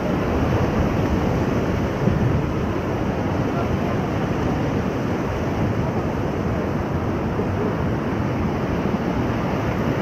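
Whitewater rapids rushing and churning around an inflatable raft, a steady loud noise with no breaks.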